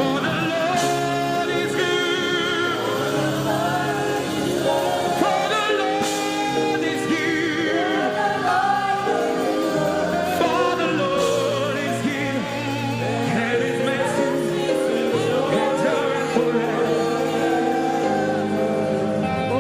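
Gospel worship music: voices singing over sustained accompaniment chords, the sung lines wavering with vibrato.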